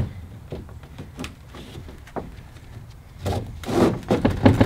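Tie-down strap being pulled tight through its buckle over a canoe on a roof rack: a knock and a few light clicks, then a louder rasping pull of the strap in the last second and a half.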